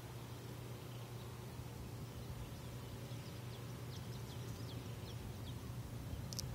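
Outdoor ambience: a steady low hum under faint background hiss, with a few faint, short, high chirps in the middle. A brief click comes just before the end.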